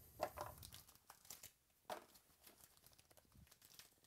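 Faint crinkling and tearing as a foil trading-card pack is torn open by hand, with two sharp snaps, one just after the start and one about two seconds in.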